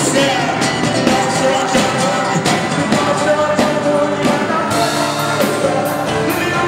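Music: a song played by a band, with a steady drum beat.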